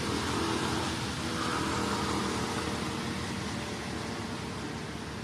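Steady background hiss with a low, engine-like hum underneath that slowly fades.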